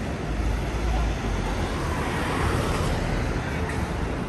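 City street traffic: a motor vehicle passing close, with a heavy low engine rumble in about the first second, over the steady hum of road noise.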